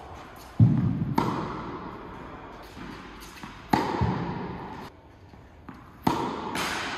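Tennis balls struck by a racket and bouncing on the court, a handful of sharp hits and thuds a second or more apart, each echoing in a large indoor hall.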